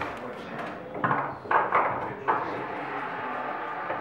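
Indistinct background chatter of people talking, with a few short knocks in between.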